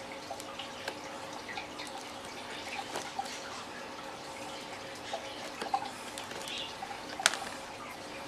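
Scattered small clicks and taps of plastic being handled as a small LED light on its wires is tried in a drilled hole in a plastic tackle box lid, with one sharper click about seven seconds in. A faint steady hum runs underneath.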